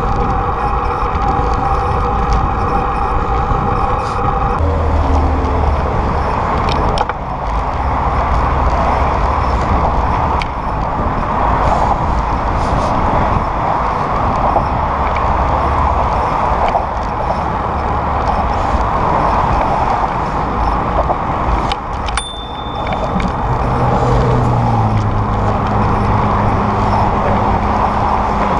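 Steady rush of wind and road noise from a bicycle riding at speed, with motor traffic running on the bridge lanes alongside. A low steady hum joins near the end.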